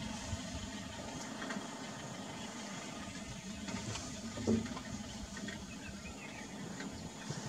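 Safari vehicle's engine idling, a steady low hum, with one brief louder low sound about four and a half seconds in.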